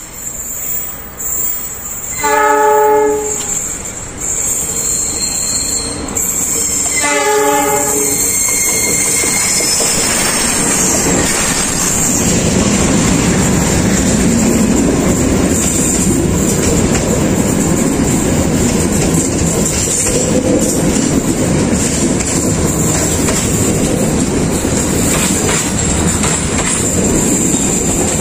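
The KA Lodaya express's locomotive horn sounds two blasts about five seconds apart as it approaches. From about ten seconds in, the train runs past close by: a steady rumble and clickety-clack of coach wheels on the rails.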